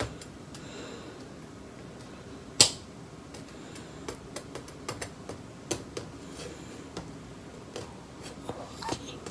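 Quiet room tone with scattered light clicks and taps, and one sharper knock about two and a half seconds in.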